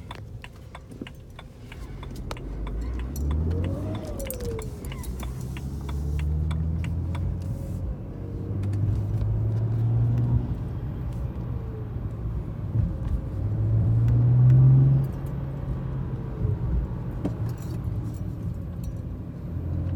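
2011 BMW 335i N55 turbocharged straight-six accelerating under load in several pulls, with a howling whistle that rises and falls in pitch over the engine note; the owner later found it was a blown turbo. The pulls get louder toward the middle and late part.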